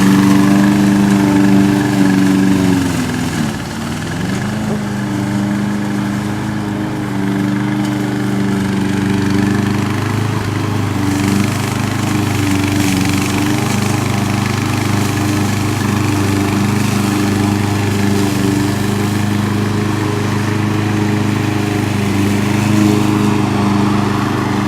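Evatech Hybrid GOAT 22T remote-control tracked slope mower running with a steady engine note. Its pitch sags about three seconds in and recovers a couple of seconds later.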